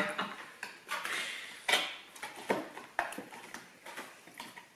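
Scattered light clicks and knocks of cardboard nugget boxes and small plastic sauce cups being handled and set down on a table, about one every half second to second.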